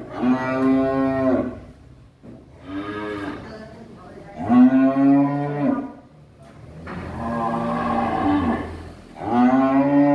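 Cattle mooing: five long, loud calls about two seconds apart, the second one weaker.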